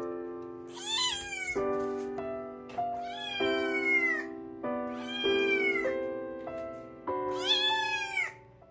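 Munchkin kitten meowing four times, each a high call falling in pitch at the end, over background music of sustained chords.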